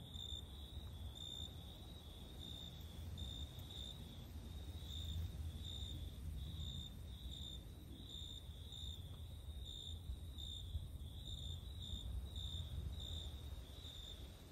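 Cricket chirping: short, high-pitched chirps repeating unevenly, about one to two a second, over a steady low rumble.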